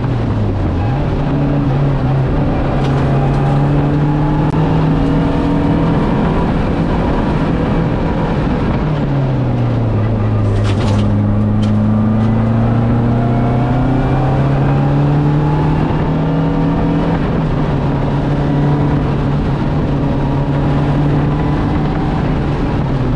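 Lancia Delta Integrale's turbocharged four-cylinder engine pulling hard at rally pace. The revs hold fairly steady, drop about nine seconds in, then climb slowly again, with a few sharp clicks near the middle.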